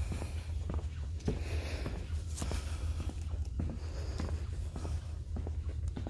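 Footsteps on wooden boardwalk planks, about two steps a second, over a steady low rumble.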